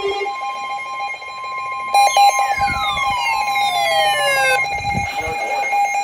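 Several NOAA weather radios sounding their alerts for a flood warning together: a rapidly pulsing beep throughout, joined about two seconds in by a steady tone and a falling siren-like sweep that both stop about four and a half seconds in.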